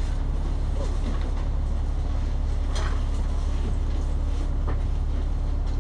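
Bus engine running steadily with a deep, even rumble, heard from inside the passenger cabin, with a few faint knocks and rattles.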